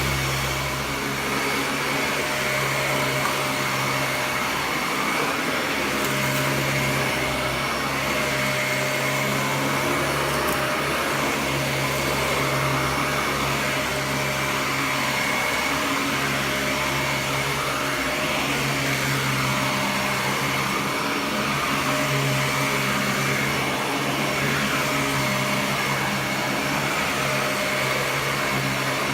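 Dyson DC41 Mk2 upright vacuum cleaner running steadily: a continuous rush of air with a steady high whine over a low hum that dips and returns now and then.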